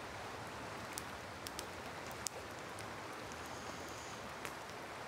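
Steady rush of river water with a few sharp campfire pops and crackles, the loudest a little past two seconds in.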